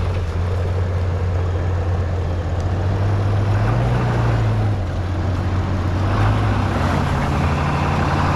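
Off-road vehicle engine running at low revs with a steady drone, rising briefly in revs twice as it is throttled to crawl over rocks.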